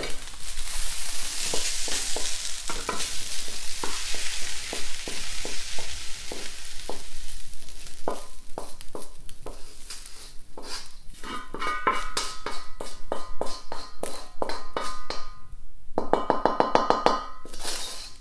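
Wooden spatula scraping and knocking against a wok as fried rice is pushed out onto a plate. The hot rice sizzles at first and the sizzling fades after a few seconds. In the second half the scrapes come thick and fast with a ringing tone under them.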